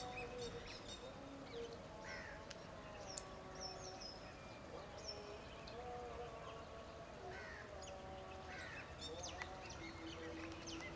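Faint birdsong over a lake: several birds chirping and calling, with a short falling call repeated a few times. Underneath runs a faint, slowly wavering distant tone.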